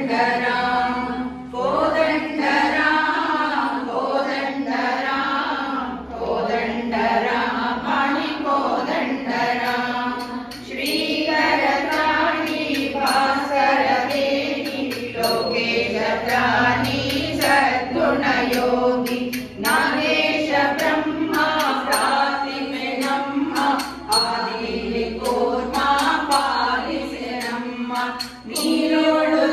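Group of women singing a devotional bhajan to Sri Ram together. A steady rhythmic ticking beat joins in about ten seconds in.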